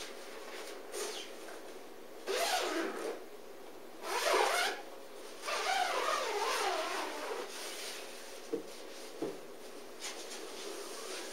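Fabric zippers on the window and door flaps of an Ameristep Outhouse camouflage pop-up blind being run open in three pulls, each about a second long. Two short light knocks follow later.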